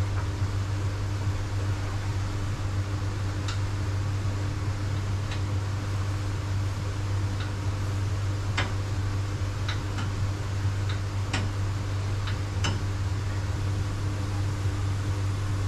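Steady low machine hum, with about ten light, sharp clicks and taps scattered through it from hands and tools working a fitting on a cylinder head clamped in a pressure-test rig.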